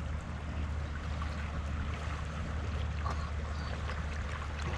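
Steady low wind rumble on the microphone, with a few faint scattered ticks.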